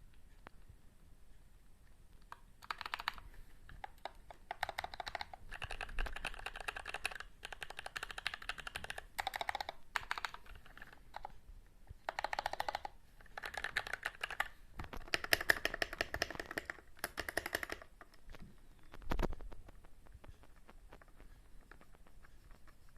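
Varmilo VA87M mechanical keyboard with stock Cherry MX Black linear switches being typed on in bursts of rapid keystrokes separated by short pauses. One heavier single knock comes near the end.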